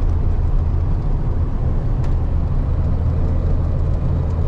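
KAMAZ 4308 truck's diesel engine and road noise while driving: a steady low rumble.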